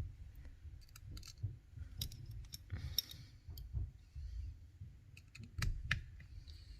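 Small metal tools clicking and tapping irregularly against a smartphone's frame as a screw is fitted to hold the main board in place, a dozen or so sharp clicks.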